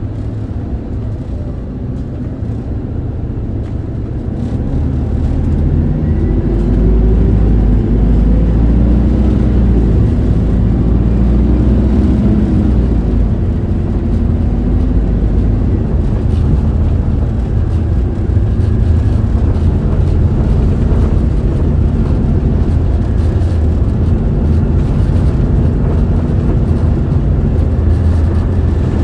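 Isuzu Erga city bus's four-cylinder diesel engine heard from inside the cabin while driving. It grows louder as the bus accelerates about five seconds in, then runs steadily with road noise.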